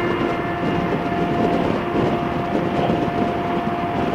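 Wind rushing over the microphone and a motorcycle running at road speed, with a steady pitched tone held all the way through.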